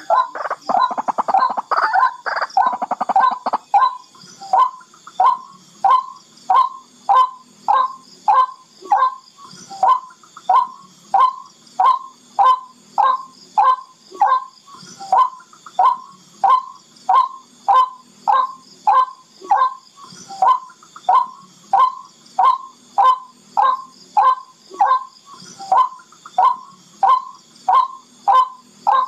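Barred rail (tikling) calling, as played for lure calling. A fast, harsh chatter runs for the first few seconds, then gives way to a long, steady series of short, sharp notes, about two a second.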